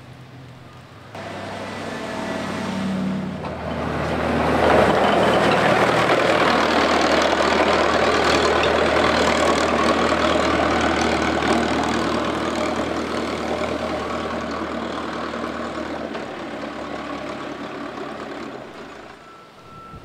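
Tracked sidewalk snow-plow tractor passing close by. A steady engine hum sits under a loud, noisy rush from the machine. It starts suddenly about a second in, is loudest around five seconds in, then slowly fades as the plow moves away.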